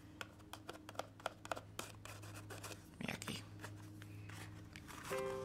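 Light clicks, taps and scratches of a paper box being handled and marked with a bone folder, over a steady low hum. Background music begins near the end.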